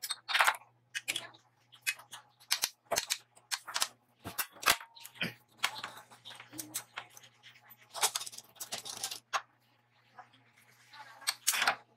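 Homemade hand-cranked scroll bender working a 1"x1/4 steel flat bar: irregular metallic clicks and clanks of the chain and bar knocking as the handle is turned, with a longer rough burst about eight seconds in.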